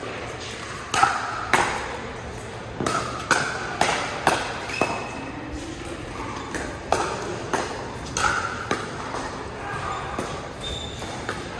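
Pickleball rally: paddles hitting the plastic ball and the ball bouncing on the court, a quick run of sharp pocks, often about half a second apart, ringing in a large hall.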